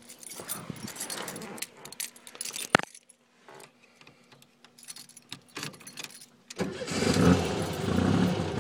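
Keys jangle and click as they are handled, ending in one sharp click just before three seconds in. About six and a half seconds in, the turbocharged 1641 cc air-cooled VW flat-four starts suddenly and runs. The engine is cold and has no choke.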